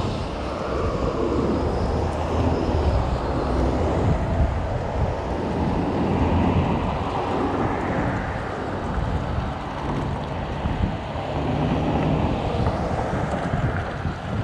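Street traffic passing through an intersection: car engines and tyres, mixed with wind rumbling on the microphone.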